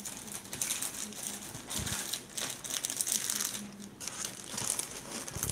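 Crinkling and rustling of something being handled, with many small irregular clicks.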